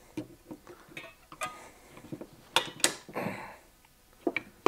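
Metal clicks and clinks of pliers working the return springs and old brake shoes out of a Honda CB450T drum brake hub. Two sharp clinks come a little past halfway, followed by a short scrape.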